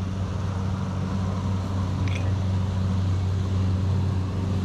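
An engine running steadily at low revs, an even low hum.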